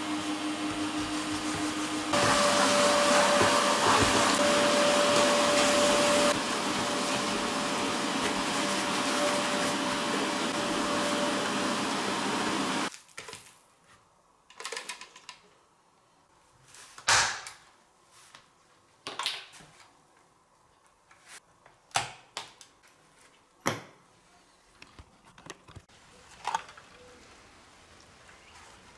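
A small electric motor appliance or tool runs with a steady hissing whir for about thirteen seconds, switching to a higher, louder speed about two seconds in and dropping back a few seconds later before cutting off. Scattered sharp clicks and knocks follow.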